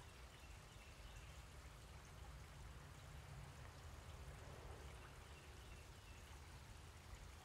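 Near silence: faint, even background noise with a steady low rumble.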